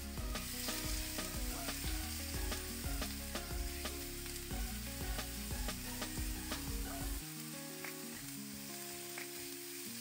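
Sliced raw pork and garlic sizzling in hot oil in a nonstick wok, stirred and scraped with a silicone spatula, giving frequent short scrapes and taps over the steady sizzle.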